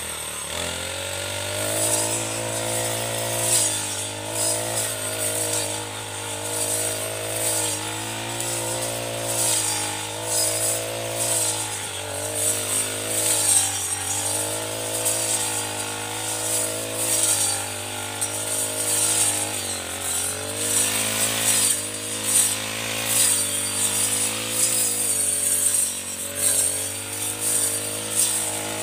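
Backpack four-stroke brush cutter fitted with a round circular-saw blade, cutting tall grass. The engine revs up and drops back again and again, every couple of seconds, as the blade swings through the grass, with a high hissing whir from the blade striking stems.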